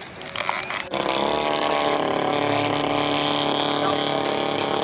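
Engine of a yellow scale Piper Cub radio-controlled model airplane running steadily at takeoff throttle as it rolls down the runway. The sound comes in suddenly about a second in.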